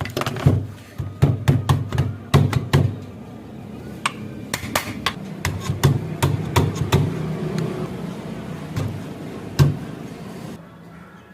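A run of sharp, irregular knocks and taps, like hammer blows, coming quickly for the first few seconds and then more sparsely, with one louder knock near the end.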